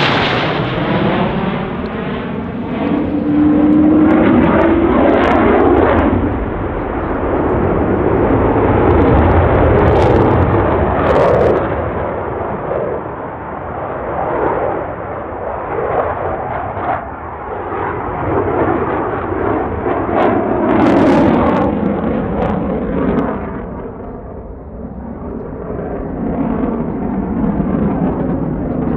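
Twin General Electric F404 turbofan engines of a CF-18 Hornet running at high power as the jet manoeuvres, a loud continuous jet roar. In the first few seconds the sound sweeps down in pitch, and later it swells and fades, dipping about three-quarters of the way through.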